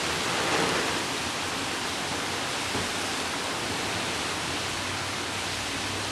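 Pouring thunderstorm rain, a steady even hiss.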